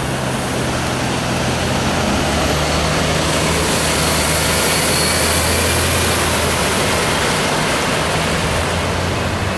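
A heavy truck's engine running with a low steady hum as it drives through deep floodwater, with the rushing splash of water thrown up by its wheels; it is loudest around the middle as the truck passes close by.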